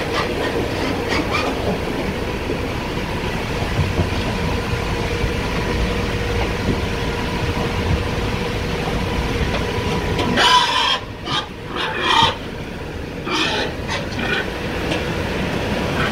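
Steady machine hum inside a pig transport truck, with a faint even whine running under it. Between about ten and fourteen seconds in, several short, louder, hissing bursts break in.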